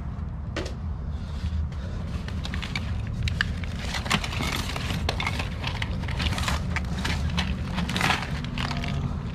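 Loose papers and envelopes rustling and crinkling as they are rummaged through inside a backpack, with many small crackles and rustles, over a steady low hum.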